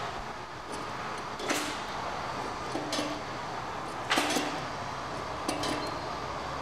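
Short metallic clinks, four or so spaced about a second apart, as an adjustable wrench turns a steel nut onto the stud of a pipe clamp's clevis, over a steady workshop hum.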